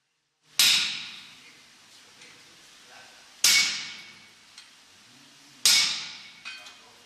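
Blacksmith's hammer striking iron on an anvil: three heavy single blows a little over two seconds apart, each ringing out and fading. A lighter tap follows near the end.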